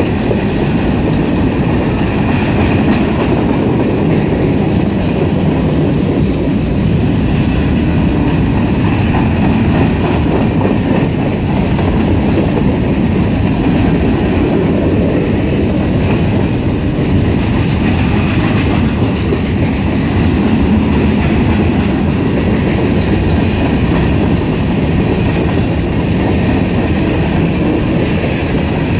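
Freight train's covered hopper cars rolling past at speed: a loud, steady rumble and rattle of steel wheels on the rails.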